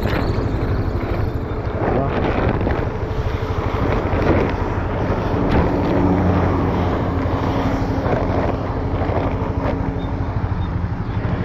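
Road traffic passing on a wet road, with tyre hiss and a steady low engine rumble throughout. A heavy vehicle's engine drones past from about halfway in, most likely the passing bus.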